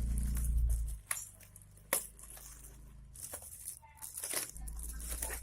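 A parcel being handled for unboxing: a few short knocks and clicks among light rustling, with low rumbling handling noise on the microphone at the start and near the end.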